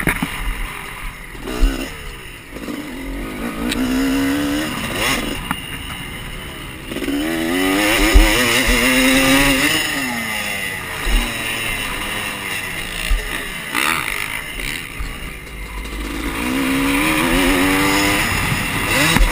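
Dirt bike engine being ridden hard, revving up and backing off again and again, each rise in pitch followed by a drop as the throttle closes. Air rushes over the microphone throughout, with a few short low thumps.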